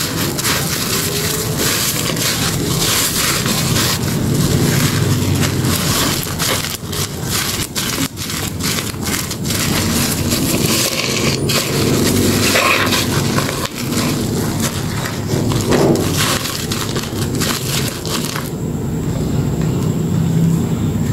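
A soapy sponge squeezed and kneaded by hand in a metal bowl, giving a continuous wet squelching crackle as the lather is worked through it. Near the end the crisp crackle suddenly drops off, leaving a duller squish.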